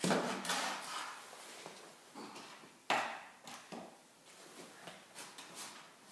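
RipStik caster board knocking and scuffing on the garage floor under a rider: a sharp knock at the start and another about three seconds in, with lighter taps and scrapes between.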